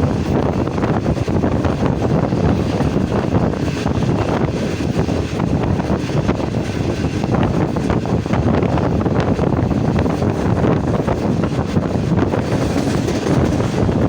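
Passenger train running past close by: a steady rumble and rattle of wheels on the rails.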